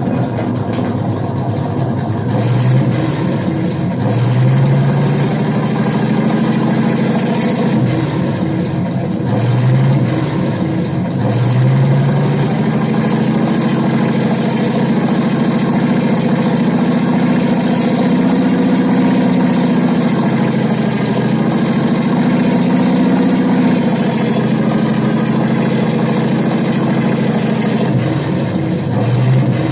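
Sampled Panther tank engine sound from an RC tank sound-board sound pack. It idles with several short rev-ups in the first dozen seconds, then holds higher revs for about twelve seconds before dropping back toward idle and blipping once more near the end.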